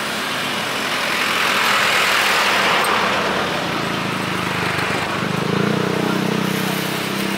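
Road traffic passing close by: a swell of engine and tyre noise over the first few seconds, then a vehicle engine's low rumble from about four seconds in.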